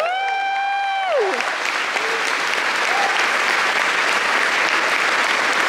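Audience applauding. At the start a single high, held cheer rides over the clapping and falls away about a second in.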